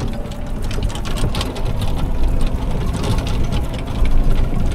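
Golf cart driving over the grass: a steady low rumble from the running cart with many small rattles and clicks from its body and fittings.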